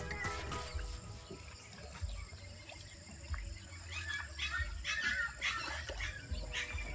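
Birds calling in short chirps, most of them from about four seconds in, over faint background music and a low rumble of wind or handling on the microphone.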